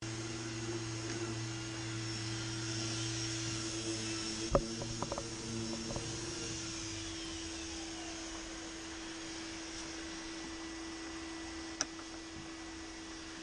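A steady motor hum that winds down in pitch near the end. A few sharp clicks of metal and plastic come through it, loudest about four and a half seconds in, as a Torx screw is taken out and handled, with one more click near the end.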